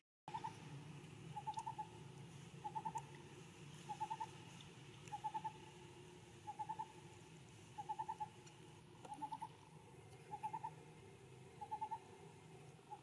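An animal's repeated call: short bursts of three to five quick notes at one pitch, about once every second and a quarter, over a low steady hum.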